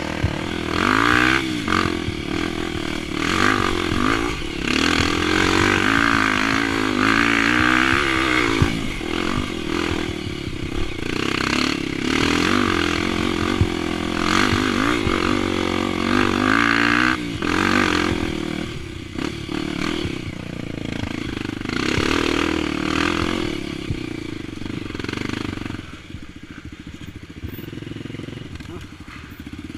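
Single-cylinder engine of a Honda XR 250 Tornado trail motorcycle, bored to 280cc with a hotter cam and a ProTork Powercore 3 exhaust, revving up and down again and again under throttle. Near the end it drops to a lower, steadier running.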